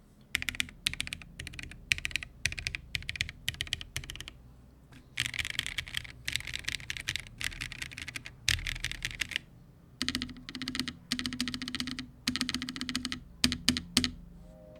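Typing test on a NuPhy Nos75 low-profile aluminum mechanical keyboard built foamless with an aluminum plate and top mounting: fast runs of low-profile switch keystrokes with brief pauses, a few heavier strokes near the end. In this foamless build the board sounds hollow, with case resonance.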